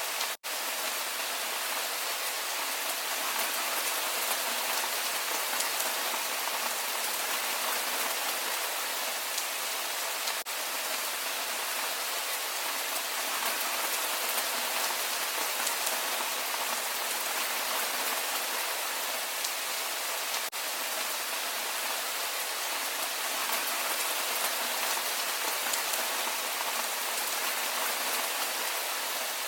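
Steady rainfall, an even hiss of drops falling on surfaces, with no rhythm or tones. A momentary dropout in the sound comes about half a second in.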